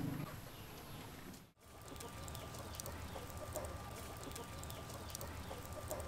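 Chickens clucking in the background with faint crackling ticks from a charcoal fire. The sound drops out briefly about a second and a half in.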